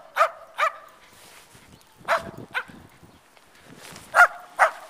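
A dog barking: six short, sharp barks in three pairs, each pair about two seconds after the last.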